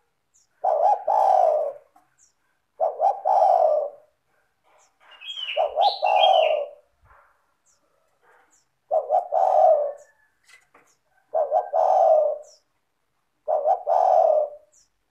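Spotted dove (tekukur) singing its cooing song: six loud phrases of low coos, each about a second long and about two seconds apart. Faint high chirps and a short higher call from other birds come in between.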